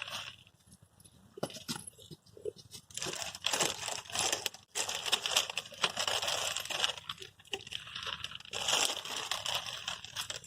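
Irregular bursts of crinkling and rustling with small sharp clicks, as a biscuit packet is handled and grabbed at.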